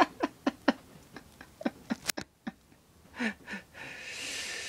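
A man chuckling in short breathy pulses that trail off. A sharp click comes about two seconds in, and a long breathy exhale near the end.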